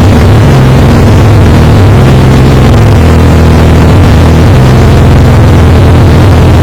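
Hail pounding down in a loud, dense clatter of countless small impacts over a deep rumble.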